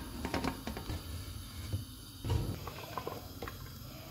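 Scattered clicks and knocks of an aluminium pressure cooker and utensils being handled, with a dull knock about two seconds in, then a wooden spoon stirring the cooked, softened dal in the pot.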